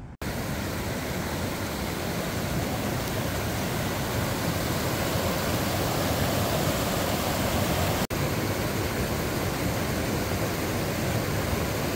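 Fast mountain stream of white water rushing over rocks: a loud, steady rush, broken by a split-second dropout about eight seconds in.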